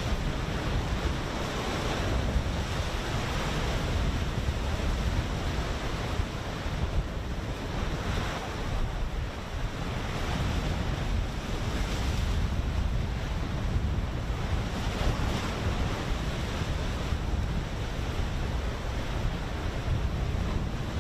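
Wind buffeting the microphone over the rushing of the open sea: a steady noise, heaviest in the lows, that swells and eases every few seconds.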